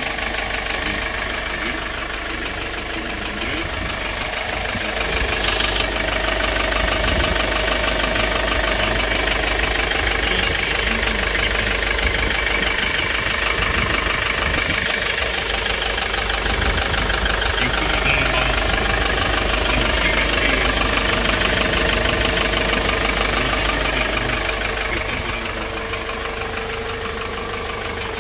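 2008 Hyundai Porter II cargo truck's diesel engine idling steadily.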